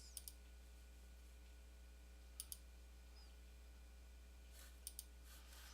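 Computer mouse clicking: three quick double clicks spread across a near-silent room with a steady low electrical hum.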